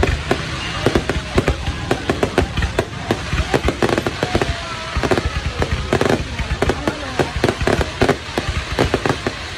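Fireworks display: shells launching and bursting in a rapid, irregular barrage of sharp bangs, several a second.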